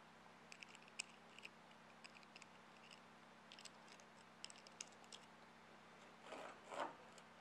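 Faint small metallic clicks and ticks of a lifting strap's buckle and hook being handled as the strap is loosened and readjusted, followed by two short, louder rustles near the end.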